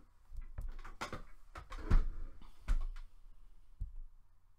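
A few soft knocks and light scratches from a fine-tip pen and hand against a spiral sketch pad, the loudest knock about two seconds in.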